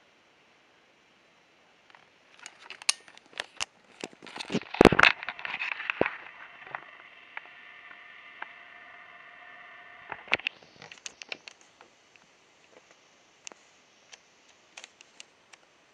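Handling noise on a camera: a run of clicks and knocks, loudest about five seconds in, with a steady hum for about four seconds after them and scattered ticks near the end.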